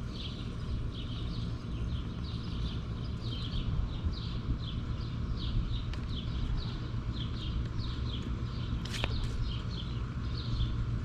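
Short high chirping calls repeating about twice a second, an animal calling, over a steady low hum.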